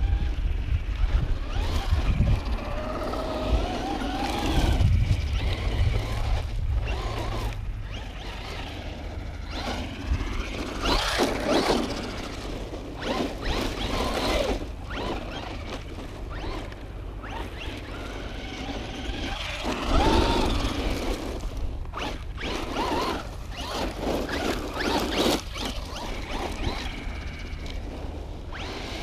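Traxxas Rustler 4x4 RC truck's electric motor whining, its pitch rising and falling over and over as it accelerates and backs off on the throttle, with several louder surges.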